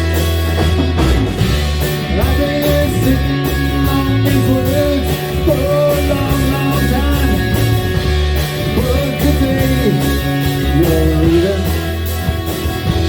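Live rock band playing an instrumental break: a guitar line with bending, gliding notes over a steady bass and drums.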